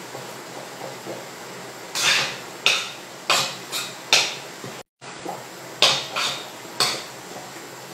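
A spoon clinking against a stainless steel pot on the hob: about nine sharp knocks in irregular succession, starting about two seconds in.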